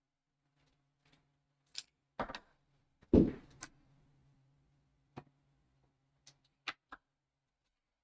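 Scattered clicks and knocks of tools being handled and set down on a workbench, with one louder thump a little after three seconds in.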